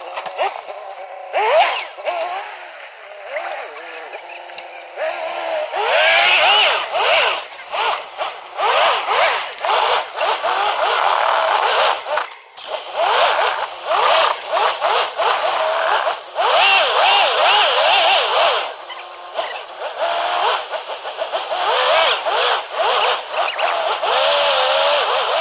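An off-road 4x4's engine revving up and down over and over as it is driven hard, with scattered knocks and clatter.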